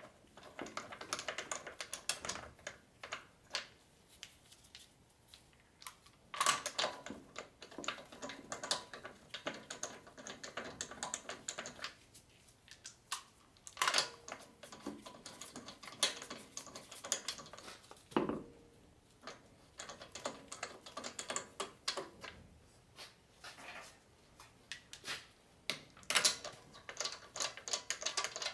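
Wheel bolts being run into the front hub to mount the wheel: rapid metallic clicking and rattling in several runs of a few seconds each, one bolt after another.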